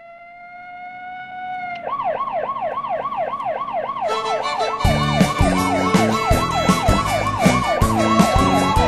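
Police car siren: a rising wail that switches about two seconds in to a fast yelp of about four sweeps a second, going back to a wail near the end. A band with a steady drum beat comes in under it about four to five seconds in.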